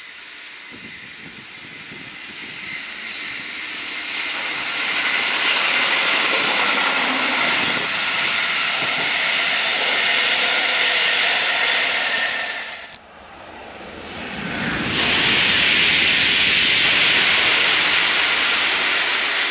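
An SNCB double-deck passenger train approaching and passing at speed, its wheel and rolling noise building over the first few seconds and holding steady. The sound breaks off suddenly about 13 seconds in, and a Thalys high-speed train then passes fast with a loud rush of wheels and air.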